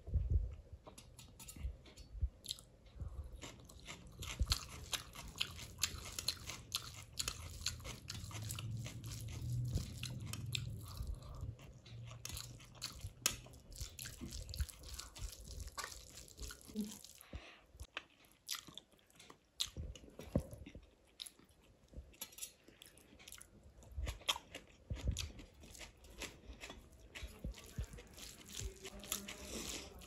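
Close-up eating sounds: rice and chole eaten by hand, with wet chewing, many short mouth clicks and smacks, and fingers mixing the food on a steel plate.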